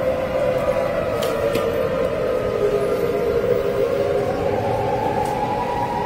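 Outdoor warning siren wailing, its pitch sliding slowly down and then rising again about four seconds in.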